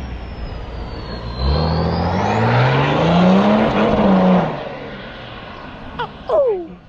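A car engine revving as it accelerates, rising in pitch for a couple of seconds, then dropping and fading away. Two short falling squeaks come near the end.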